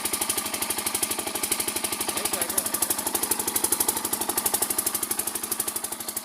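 Kirloskar single-cylinder diesel engine running steadily, its firing knock coming as a rapid, even beat.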